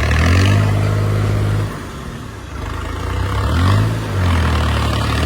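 New Holland 3630 tractor's diesel engine running under way and revving up three times, near the start, about three and a half seconds in and at the end, easing off in between.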